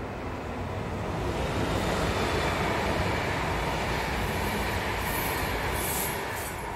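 Trenitalia double-deck regional passenger train passing on the rails: the rumble of wheels on track swells, holds and then fades as the train goes by. A few short high hisses come near the end, as the cab car passes.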